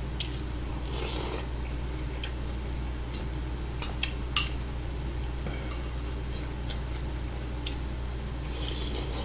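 Eating sounds: a metal spoon clicking against bowls in a few scattered clicks, the sharpest about four and a half seconds in, and short bursts of mouth noise around a second in and near the end as mouthfuls of rice and kimchi stew are taken, over a steady low hum.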